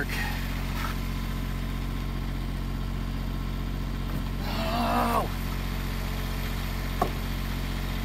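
Dodge Grand Caravan V6 engine idling with a steady low hum. About five seconds in there is a short voice-like call, and near the end a single click.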